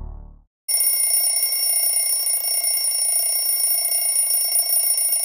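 Ambient music fades out, then about a second in a phone alarm starts ringing, a steady high ring that goes on unbroken.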